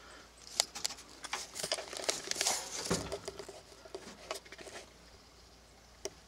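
Light handling noise: a run of irregular clicks, taps and scratchy rustles lasting about four seconds, then one more click near the end.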